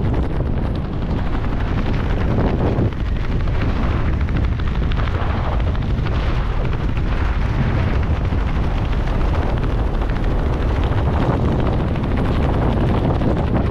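Wind buffeting the camera microphone during a parachute descent under an open canopy: a loud, unpitched rush, heaviest in the low end, that wavers irregularly.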